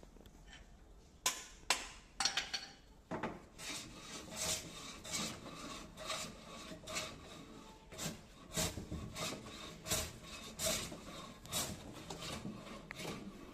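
Repeated rubbing or rasping strokes on a hard surface, about two a second, after a few sharp knocks in the first couple of seconds.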